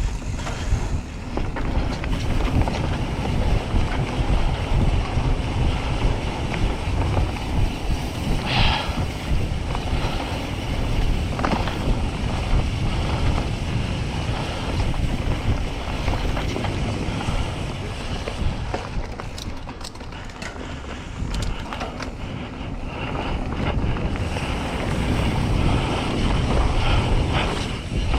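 Wind buffeting the microphone over a steady rumble of a mountain bike rolling along a dirt trail, with scattered clicks and rattles from the bike.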